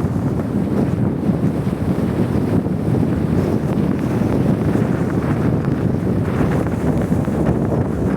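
Strong blizzard wind blowing steadily and rumbling against the microphone.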